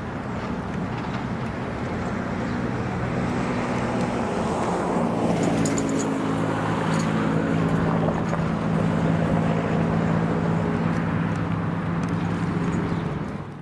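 A passing vehicle: a steady low engine drone with road or running noise that swells over the first few seconds, holds, then cuts off abruptly at the end.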